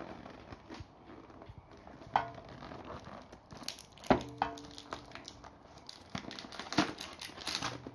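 Toy packaging and hard plastic pieces being handled: rustling and crinkling with several sharp plastic clacks, the loudest about two and four seconds in, each ringing briefly.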